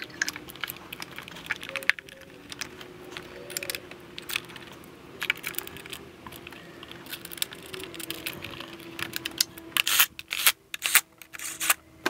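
Irregular plastic clicks and rattles as coil-on-plug ignition coils on a BMW E46 straight-six are unclipped, pulled and refitted, with the sharpest snaps near the end, over a faint steady hum.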